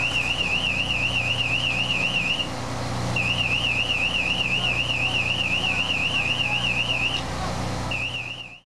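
An electronic alarm warbling rapidly up and down, about seven warbles a second, in three stretches with short breaks, over a steady low hum. Near the end all sound cuts off suddenly.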